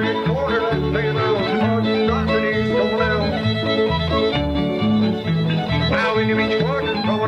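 Background country music: fiddle over guitar, with a moving bass line.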